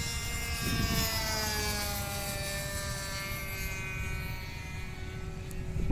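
Seagull Spacewalker RC model airplane's engine droning in flight, its pitch falling smoothly over the first few seconds and then holding steady. Wind rumbles on the microphone underneath.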